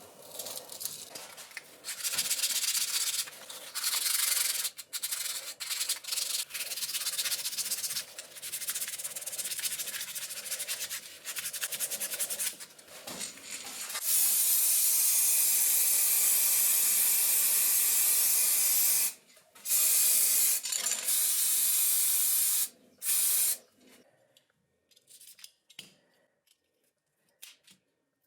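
Repeated rubbing strokes, as of hand sanding rusty metal. About halfway through they give way to a long steady hiss that breaks off briefly once and stops a few seconds before the end.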